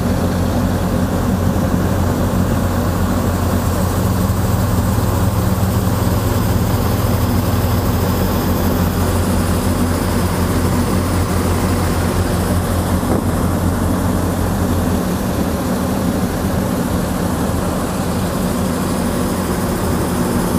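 A ferry's engine running with a steady low drone and a hiss of noise over it; the deepest part of the hum eases off about three-quarters of the way through.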